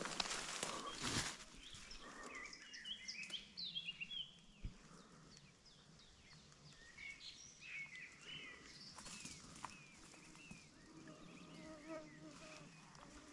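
Small songbirds chirping and twittering, with a brief rustle at the start. A fly starts buzzing close by near the end.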